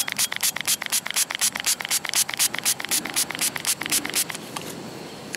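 Small hand pump spray bottle spritzing water in quick repeated squirts, about five a second, onto a muddy dug-up metal badge to wash the dirt off. The squirting stops shortly before the end.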